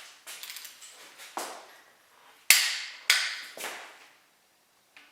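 Click-type torque wrench and socket on ARP stud nuts during the final 80 ft-lb tightening pass: a string of sharp metallic clicks and clinks, the loudest about halfway through, with a short ring after each.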